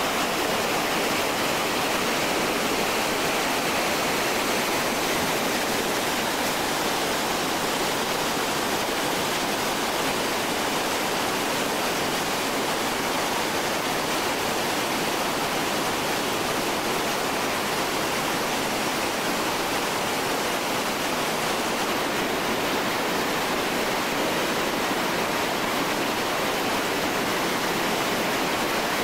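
Whitewater rapids rushing over boulders: a steady, unbroken rush of churning water.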